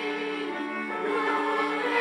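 A church choir singing a hymn in parts, holding sustained chords that change slowly.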